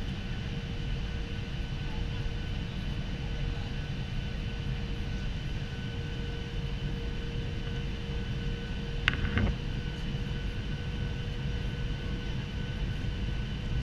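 Steady inside-the-cabin noise of a Ryanair jet airliner on its landing approach: the engines' hum and the rush of air, with a short clatter about nine seconds in.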